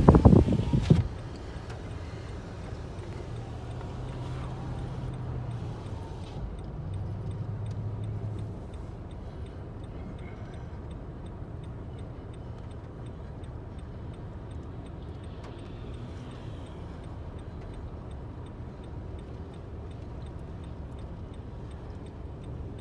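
A loud gust of wind buffeting the vehicle dies away about a second in, leaving a steady low rumble inside the vehicle's cabin with faint, evenly spaced ticking.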